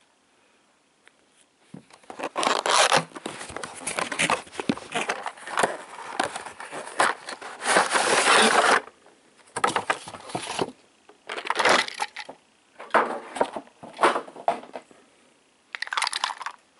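A cardboard box being opened by hand: tape slit and torn, then flaps and packaging scraping, rustling and tearing in irregular runs with short pauses, loudest about halfway through.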